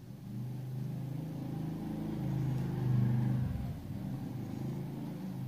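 A motor vehicle engine running, growing louder over the first second and fading away at the end, with its pitch shifting a little past the middle.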